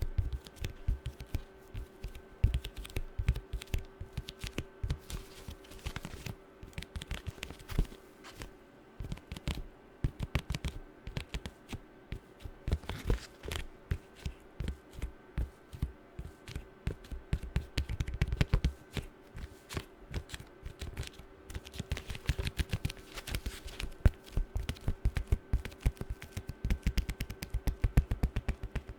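Fast fingernail tapping on objects: a dense, uneven stream of sharp clicks, some taps with a low knock, over a faint steady hum.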